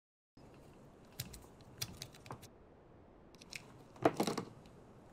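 Scattered plastic clicks and light rattles from handling a Fluke 1736 power logger and its test leads, with a louder clatter about four seconds in.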